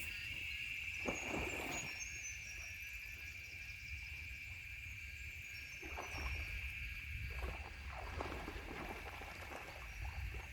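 Outdoor ambience: a steady high-pitched tone held throughout, a low rumble underneath, and a few soft rustles.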